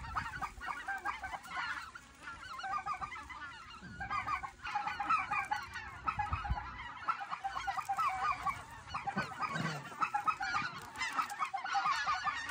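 A large mixed flock of white-fronted geese (specklebellies) and Canada geese calling continuously overhead, a dense chorus of many overlapping yelps and honks.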